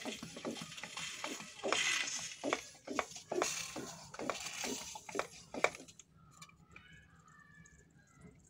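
Plastic hand-pump pressure sprayer bottle being pumped up. The plunger strokes up and down with plastic clicks and a rush of air on each stroke, building pressure over the water inside. The pumping stops about six seconds in.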